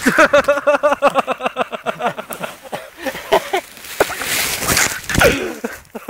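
A man laughing hard in a fast run of short, pitched bursts, about five a second, which fades into a few scattered shorter vocal sounds.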